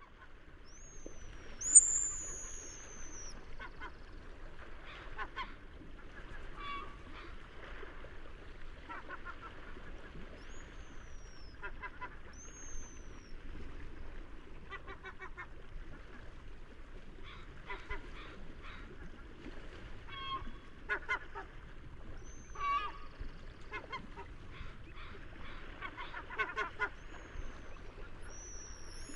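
Seagulls calling repeatedly over a steady low wash of sea noise, with several high, falling cries; the loudest cry comes about two seconds in.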